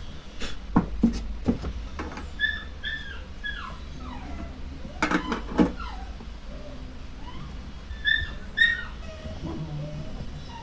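Sharp clicks and knocks of hands working on parts in the fuel pump area under a scooter's seat, loudest about a second in and again around five seconds. Between them come two short runs of high, slightly falling chirping calls from an animal, one about two seconds in and one near the end.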